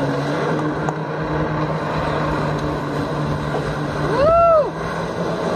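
A jet ski engine runs steadily, pumping water to a flyboard. About four seconds in, a short, loud tone rises and then falls in pitch.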